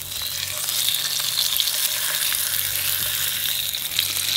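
Australian bass fillets sizzling skin-side down in hot olive oil in a frying pan: a steady hiss scattered with small crackles and spits.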